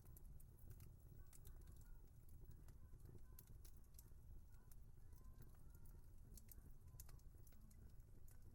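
Wood fire crackling faintly, with irregular small pops and snaps over a low steady rumble.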